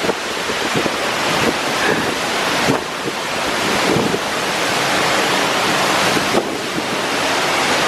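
Waterfall pouring down inside a narrow rock gorge: a loud, steady rush of falling water, with wind and spray buffeting the microphone.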